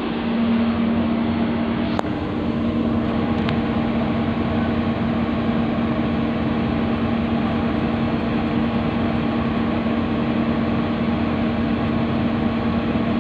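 Diesel locomotive's engine running steadily, a constant drone with a strong hum. A sharp click comes about two seconds in, and a fainter one a second and a half later.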